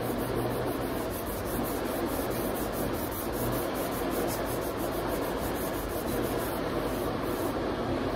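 Sandpaper on a hand sanding block rubbing back and forth over the high-build primer of a truck's body panel, a steady scratchy hiss in quick, even strokes.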